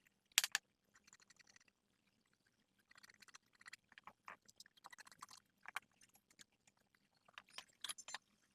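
Small tools clicking and scraping against the chip and stencil during hand reballing (solder-ball planting) of an SSD controller chip. Scattered light clicks and brief scrapes, with a sharp pair about half a second in and clusters in the middle and near the end.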